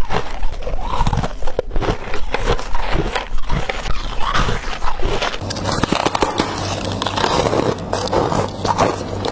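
Ice being bitten and crunched in the mouth: small pieces of white crushed ice at first, then, after about five seconds, bites into a slab of soft freezer frost.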